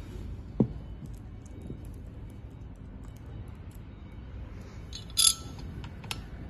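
Metal furniture-leg parts and small screws being handled, with light clinks throughout, a dull knock about half a second in, and a louder bright metallic clink about five seconds in.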